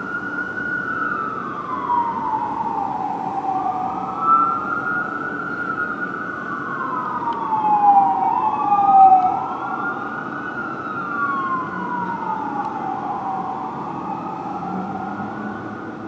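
Fire engine siren wailing, rising and falling slowly, about one cycle every four to five seconds, with two wails overlapping at times. A low engine rumble runs underneath.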